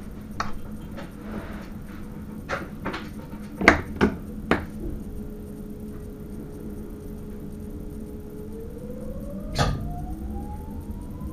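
Electric Sprinter train in the driver's cab: several sharp clicks and knocks, then a steady electric whine that starts rising in pitch about three-quarters of the way through as the train picks up speed.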